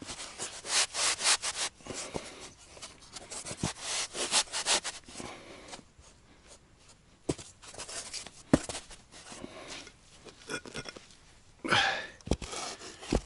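Scraping and digging in sand under a foundation support: a run of rough scraping strokes, a few sharp knocks in the middle, then more scraping near the end.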